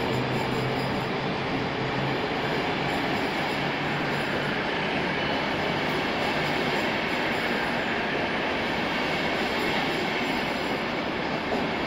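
PKP Intercity passenger coaches rolling past along the platform: a steady, continuous noise of wheels running on the rails, echoing under the station's roof.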